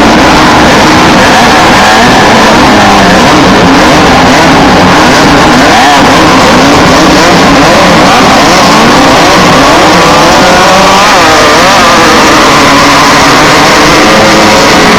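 Class 1600 off-road race cars' air-cooled VW 1600 cc engines running hard and loud, several at once, their pitches rising and falling and overlapping as they rev through the gears.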